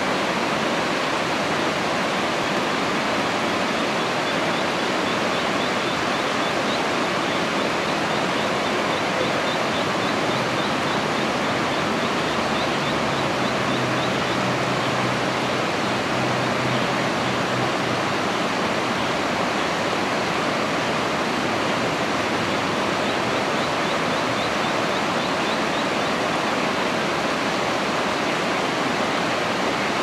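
Steady rush of flowing river water over shallows, with a faint low hum for a few seconds near the middle.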